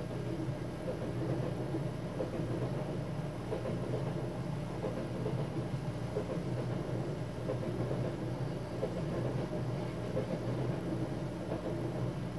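A train passing on the adjacent track, heard from inside a sleeper compartment: a rumbling rush that swells as it goes by and fades near the end, over the steady low hum of the compartment's own running train.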